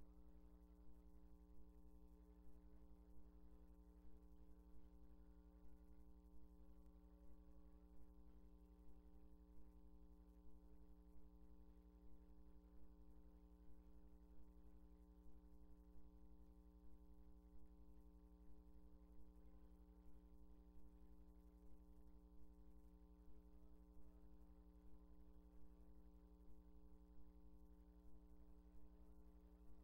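Near silence with a steady electrical hum made of several held tones, and a faint pulse repeating about one and a half times a second.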